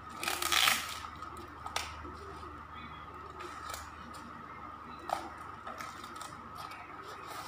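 Brown paper plant wrapping rustling and crinkling as it is handled and pulled off a plant, loudest in a short burst under a second in, followed by a few sharp crackles.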